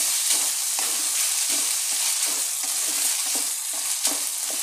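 Ground beef sizzling in a frying pan while a wooden spatula stirs and scrapes through it, about two or three strokes a second, over a steady sizzle.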